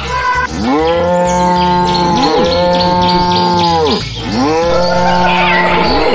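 Cow mooing: three long, drawn-out moos in a row, each sliding up in pitch as it starts and down as it ends, with a short break about four seconds in.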